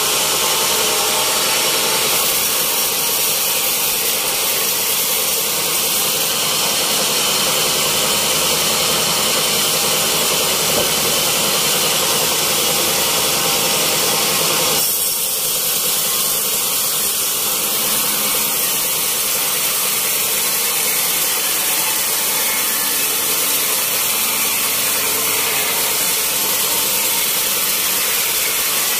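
Band sawmill running and slicing lengthwise through a fresh-cut teak log: a loud, steady whirr of the blade and its drive, with a sudden shift in tone about halfway through.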